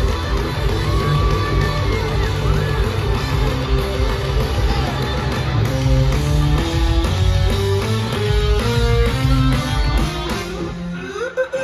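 Live rock band playing through a concert PA, heard from among the crowd: heavy bass and drums under an electric guitar line of short stepped notes. The low end drops out briefly near the end.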